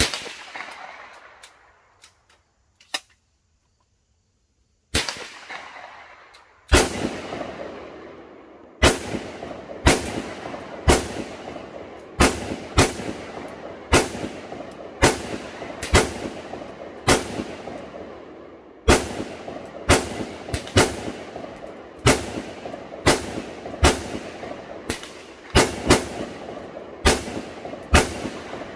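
Palmetto State Armory AR-15 in 5.56/.223 fired semi-automatically. Three widely spaced shots, then a steady string of about twenty more at roughly one per second, each a sharp crack with an echoing tail.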